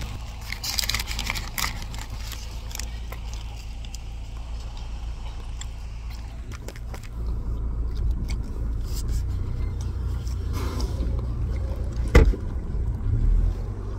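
A car's engine runs as a steady low hum under crackly, crunchy chewing of a flaky croissant close to the microphone, with one sharp knock about twelve seconds in.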